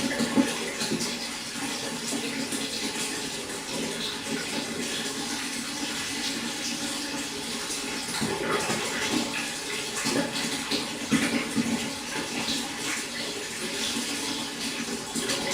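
Water running and splashing steadily into a pond, with a few louder splashes.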